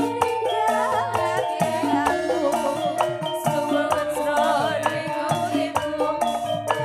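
Campursari music played live by a band: percussion strokes keep a steady beat under held melodic lines, some of which waver in pitch.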